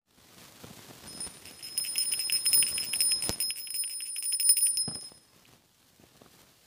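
A small bell rung rapidly, its high ringing tones pulsing with each quick stroke for about four seconds, with a sharp click near the middle and a knock just before it stops.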